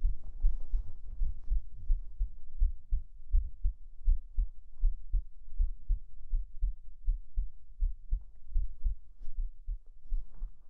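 Human heartbeat: a steady run of paired low thumps. Faint fabric rustling comes in over it at the start and again near the end.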